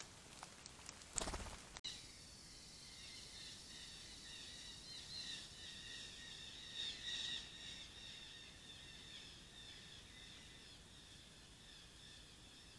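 A short burst of noise about a second in, then a steady, high-pitched chorus of forest animal calls that swells twice near the middle.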